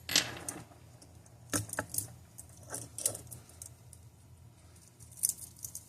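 Light metal clicks and clinks from small watch parts and tools being handled: a handful of separate sharp ticks, the loudest just after the start, others spread through the rest.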